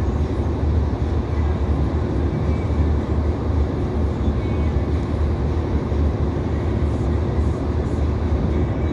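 Steady rumble of an Irish Rail 2800 Class diesel railcar running along the track, heard from inside the passenger car: wheels on rail and underfloor engine noise.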